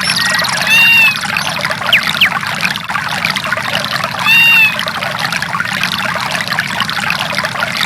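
Samsung SGH-E870 nature-sounds ringtone: steady running, trickling water, with a short arched animal call about a second in and again about four and a half seconds in, and a couple of quick chirps between them.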